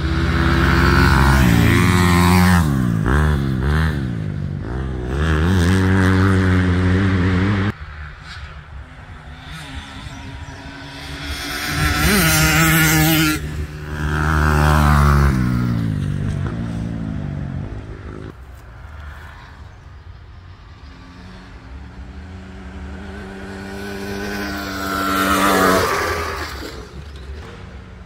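Dirt bike engines at full throttle racing past on a dirt track, the pitch rising and falling with gear shifts and revving as each bike nears and goes by. There are three passes, and the first cuts off abruptly about a quarter of the way through.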